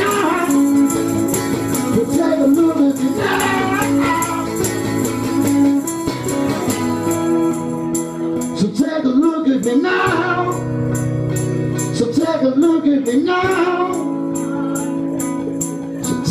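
Live acoustic music: a man singing long held, wavering notes over two strummed acoustic guitars.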